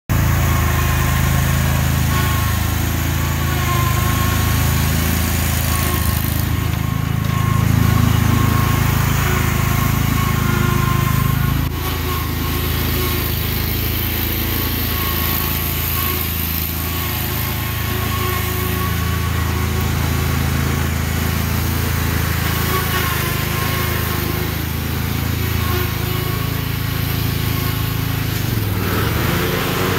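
Snapper Pro zero-turn riding mower's engine running steadily while the mower is driven and turned, with a thin steady whine above the engine note.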